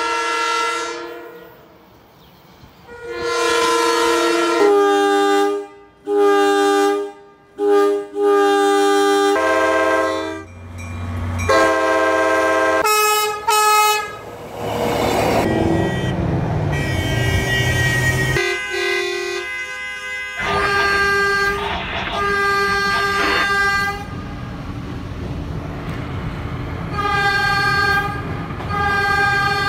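Train horns from several different trains (a Metro-North commuter train, NJ Transit light rail, a New York City subway train) sounding in turn, each a short blast or two in its own pitch, sounded as a coordinated salute. A low rumble of a passing train comes in about halfway through.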